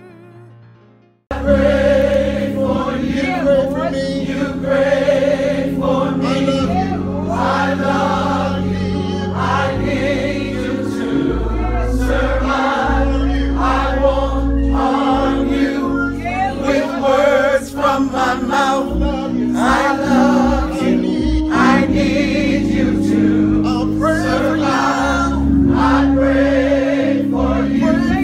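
Gospel song: a choir singing over held chords and a steady bass line, starting abruptly about a second in after a brief silence.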